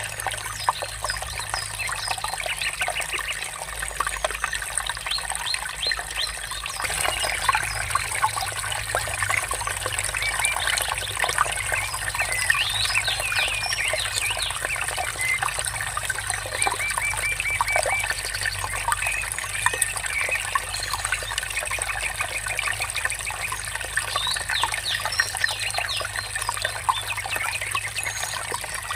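Trickling, murmuring stream water with songbirds chirping and whistling throughout, including a couple of rapid trills.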